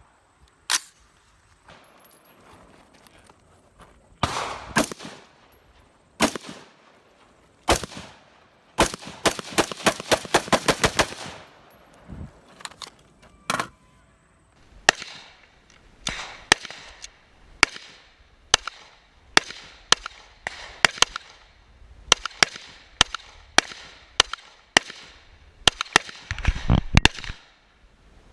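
Gunshots from firearms: a few scattered single shots, then a fast string of about a dozen shots at roughly five a second, then steady shooting at about one to two shots a second.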